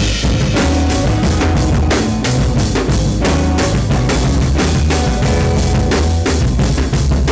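Jazz group playing live: electric guitar and electric bass over two drum kits, the drummers playing busily on cymbals, snare and bass drum.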